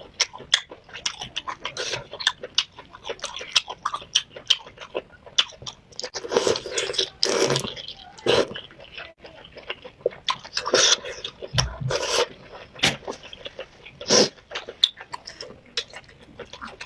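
Close-miked eating: wet chewing, biting and lip-smacking in irregular crackly clicks, with louder bites and chews in clusters about six, eleven and fourteen seconds in.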